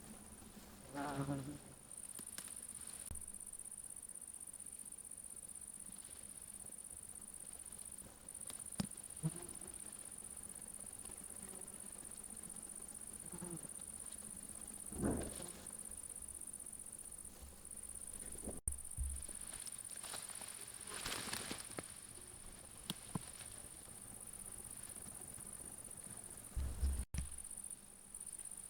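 Steady high-pitched chirring of field insects, holding on one pitch throughout, with a few brief louder sounds scattered through it.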